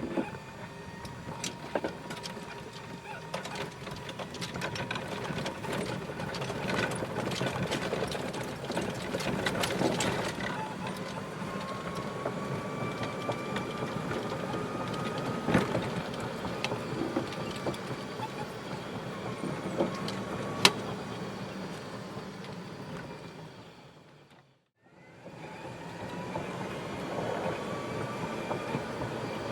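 Electric golf cart driving, heard from inside the cart: the drive motor's whine slowly rises and falls in pitch with speed over steady running noise, with scattered clicks and knocks. The sound cuts out briefly about 25 seconds in, then resumes.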